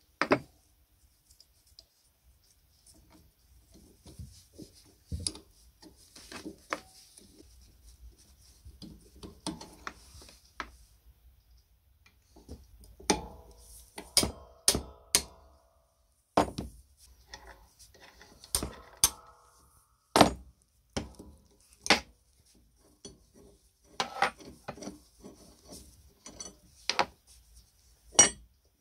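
Steel hand tools and loose bolts and nuts clinking and knocking against the steel arm of a clay-pigeon trap and a wooden workbench as the nuts are undone and the bolts taken out. Scattered sharp clinks a second or two apart with short bursts of rattling, the loudest a little over two-thirds of the way through.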